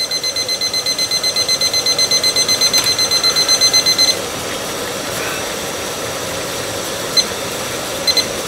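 Rapid electronic alarm beeping, about five beeps a second, that cuts off about four seconds in, over the steady hiss of a canister gas stove burner under a mess kit pot of water at a rolling boil.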